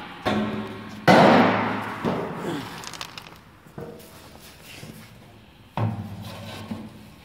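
Knocks of a bin and cardboard box being handled, and a sudden rush of chopped peanut powder tipped out onto a board, fading over a second or two; another knock near the end.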